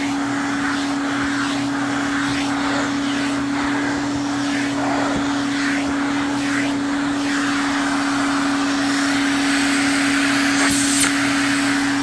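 Vacuum cleaner running with a grooming brush attachment drawn through a dog's long coat: a steady motor hum under a rush of air that swells and fades as the nozzle moves through the fur, with a brief sharp hiss near the end.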